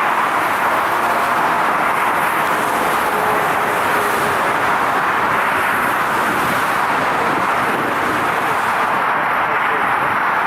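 Jet airliner engines running, a steady rushing noise at an even level with a faint whine in it.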